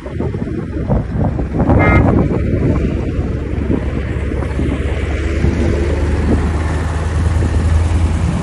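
Steady low rumble of a road vehicle, with a brief high tone about two seconds in.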